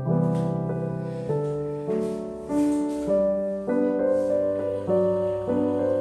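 Background piano music: a steady, even piece with a new chord struck about every half second.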